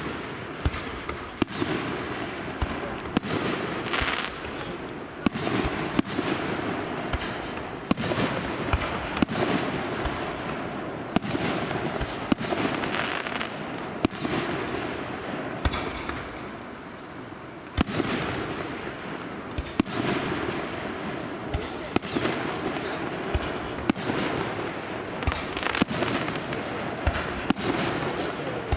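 Aerial fireworks display: shells bursting with sharp bangs every one to two seconds over a continuous din, easing briefly about halfway through before the bursts resume.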